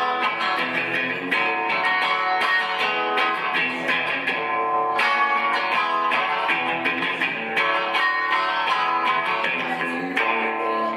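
Live guitar music: a guitar played with quick strummed and picked notes, steady and loud.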